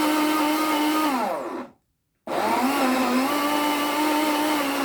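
Electric blender running, blending a thick avocado, boiled rice and mayo mixture until smooth. Its whine falls in pitch and stops about a second and a half in, then after a short gap the motor starts again and runs steadily.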